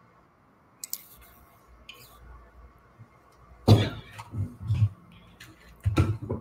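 Handling noise at a desk: a few light clicks, then two louder thumps with smaller bumps between them, about halfway through and near the end.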